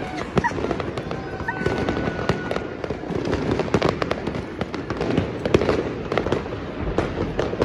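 Fireworks exploding overhead in a dense, irregular string of sharp bangs and crackles.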